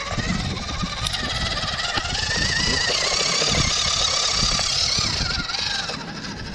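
Small electric motor and gearbox of a WPL 1/16-scale RC crawler truck whining under load as it climbs over rock, with irregular low thumps. The whine grows louder about two seconds in and eases off near the end.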